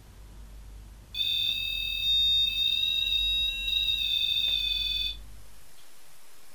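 A high-pitched electronic alarm tone that sounds steadily for about four seconds, starting about a second in and then cutting off.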